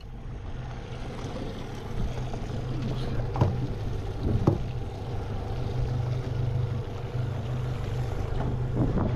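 Honda outboard motor idling with a steady low hum, under wind noise on the microphone, with two short knocks about three and four and a half seconds in.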